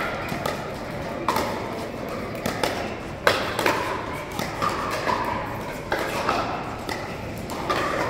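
Pickleball paddles striking the hard plastic ball during a rally: a series of sharp, hollow pops every second or two, each ringing briefly in a large sports hall.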